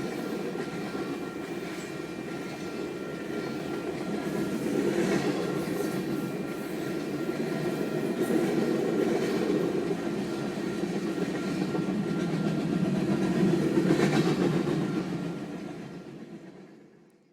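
A train running on the rails, a steady rumble with a few clanks along the way, fading out over the last couple of seconds.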